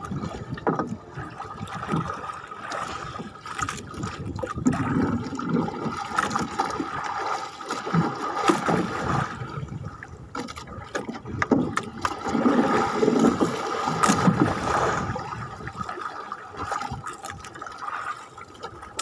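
Sea water sloshing and splashing against the hull of a small wooden outrigger boat in choppy waves, in uneven swells, with a faint steady hum underneath.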